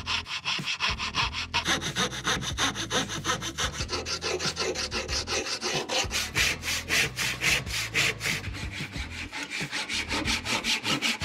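Hand tool worked rapidly back and forth on wood, cutting or filing it in an even run of about four or five strokes a second.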